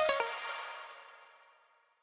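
Electronic background music ending on a final chord that fades out to silence.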